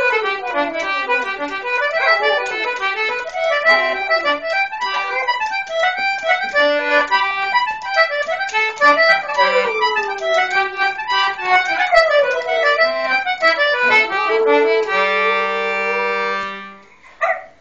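Concertina playing a fast Irish reel while a dog howls along in long sliding notes that mostly fall in pitch. Near the end the tune stops on a held chord, followed by a brief separate sound.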